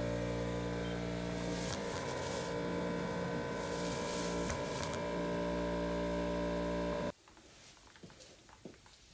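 Steady electric-motor hum, as of the air compressor that feeds the engine cleaning gun, with a few short hisses of air in the first half. The hum cuts off suddenly about seven seconds in, leaving only faint ticks.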